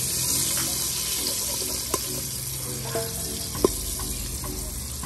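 Curry frying in hot oil in an aluminium pot over a wood fire, the 'burning the curry' step before goat goes in: a steady sizzling hiss. A couple of sharp clicks of the metal ladle against the pot come through it, the louder one about three and a half seconds in.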